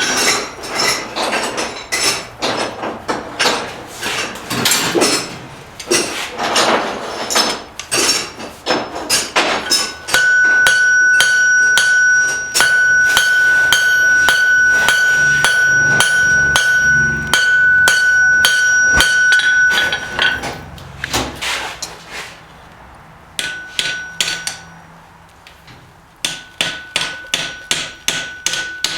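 Hammer blows on hot steel on an anvil, the anvil ringing with a steady high tone under each strike. The blows come in a fast, dense run through the middle, pause briefly, then resume as spaced strikes near the end.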